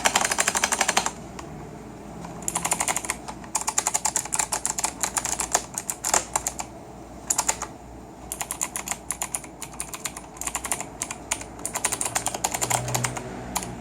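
Gigaware K26 mechanical keyboard with clicky Outemu Blue switches being typed on rapidly in bursts separated by short pauses, each keystroke a sharp click.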